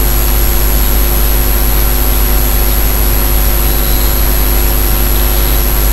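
Steady hum and hiss with a strong low drone and a few fixed tones, including a faint high whine, unchanging throughout: constant background noise of the recording setup, with no speech.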